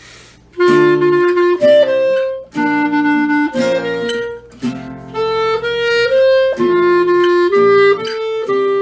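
Music: a melody of held notes stepping from pitch to pitch over a lower accompaniment, starting about half a second in.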